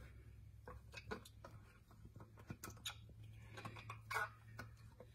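Faint scrapes and light taps of a spatula scraping baby food out of a small plastic cup over a metal mixing bowl, over a low steady hum.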